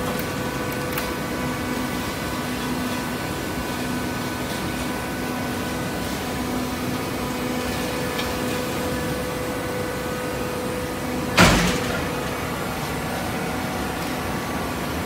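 Horizontal hydraulic baler running with a steady machine hum, and a single loud knock about eleven seconds in.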